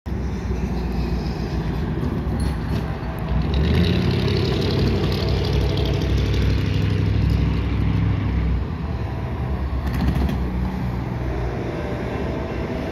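Diesel locomotive engine of an approaching CSX SD70MAC working up a grade: a deep, steady rumble that grows louder from about three and a half seconds in and eases a little after about eight and a half seconds.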